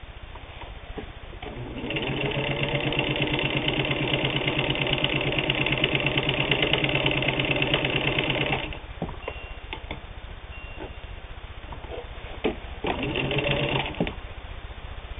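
Singer 15-91's can-type internal motor and worm-gear drive sewing split leather: a fast, even stitching rhythm that starts about two seconds in, runs for about seven seconds and stops. A few light clicks follow, then a second short burst of stitching near the end.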